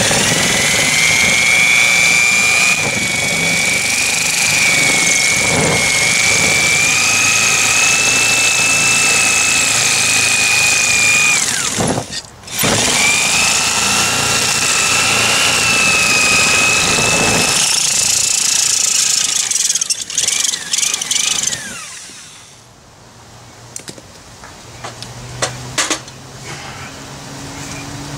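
Electric saw with a reciprocating blade cutting through a wooden sledgehammer handle right at the head, running as a steady high whine. It stops briefly about twelve seconds in, runs again, then stutters and stops a little after twenty seconds.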